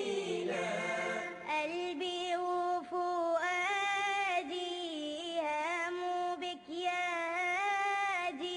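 Background music: a single voice singing in a chant-like style, holding long, slightly wavering notes with a brief break about six and a half seconds in.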